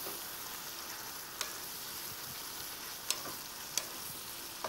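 Vegetables sizzling in a hot wok as they are stir-fried with a wooden spatula: a steady frying hiss with three short clicks of the spatula against the pan.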